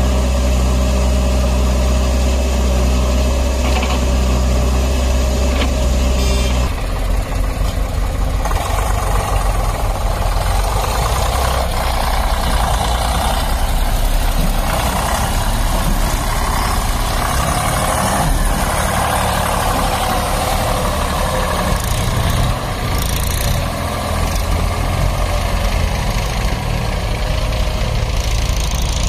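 Diesel engines of a backhoe loader and a farm tractor running. A steady idling hum changes abruptly about seven seconds in to a rougher, noisier engine sound with no steady pitch.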